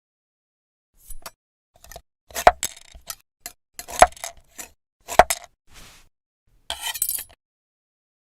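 Small hard objects clicking and clinking: about a dozen separate, irregularly spaced knocks, each with a short ring, the loudest a little after two, four and five seconds in, then a brief scraping rustle near the end.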